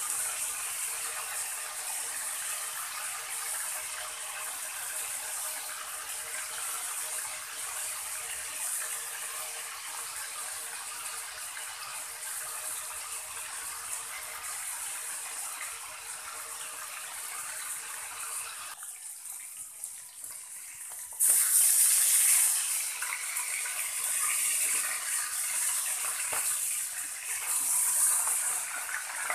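Pork steak frying in hot oil in an aluminium wok, a steady, spattering sizzle. About two-thirds of the way through it drops away for a couple of seconds, then comes back louder as a spatula turns the pieces.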